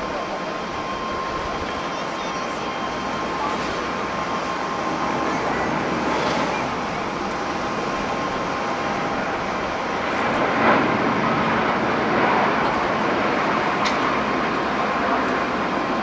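Airbus A350's Rolls-Royce Trent XWB turbofans at takeoff thrust: a steady jet roar that grows louder through the takeoff roll and liftoff. There is a brief sharp tick a little after the middle.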